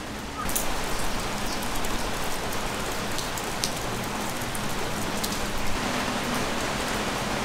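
Steady rain falling, a dense even hiss that gets louder about half a second in, with scattered sharp drop ticks.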